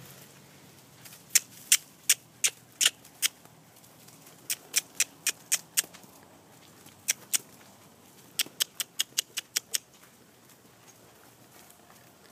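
A handler's tongue clucks: short, sharp clicks in quick runs of two to eight, the fastest run about six a second, used as a cue to keep a lunging horse moving forward at the jog.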